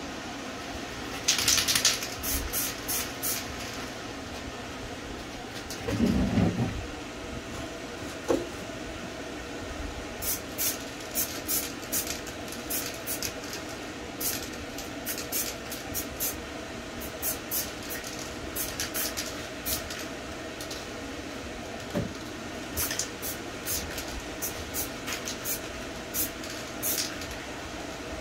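Short hissing spurts of black marble-effect spray paint from a Montana aerosol can, in runs of quick bursts, over the steady drone of a fan or air mover blowing across the work. A single low thump about six seconds in.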